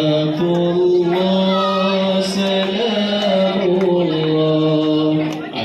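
Music with a voice chanting long, drawn-out held notes, each sliding up into place and then held steady.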